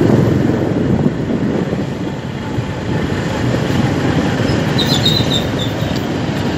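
Motor scooter riding along a street, heard from on board: a steady rumble of engine, tyres and wind buffeting the microphone.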